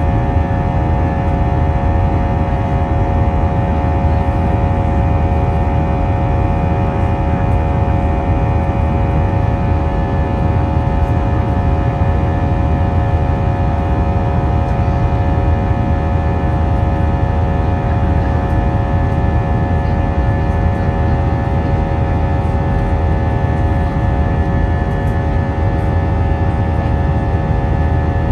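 Steady cabin noise inside an Airbus A320 with its IAE V2500 engines running: a loud, even low rumble with a constant hum of several steady engine tones over it.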